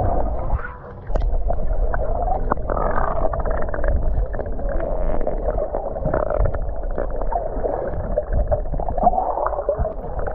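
Muffled water sounds picked up by a camera held underwater: gurgling and churning with a low rumble, dipping briefly just under a second in.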